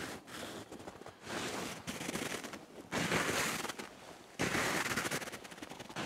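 Footsteps crunching through snow at a walking pace, about five steps, each a short grainy crunch.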